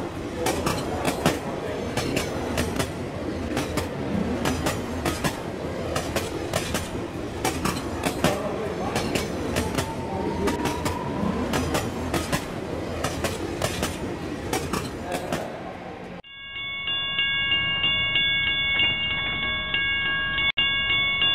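HO-scale model freight train rolling along layout track, heard from a camera riding on the train: a steady rumble with many sharp wheel clicks over the rails. About 16 seconds in it cuts suddenly to a held chord of steady ringing tones.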